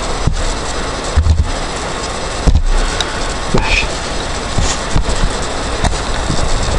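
Steady loud hiss from a computer microphone, with scattered low thumps and a few clicks from typing on the keyboard.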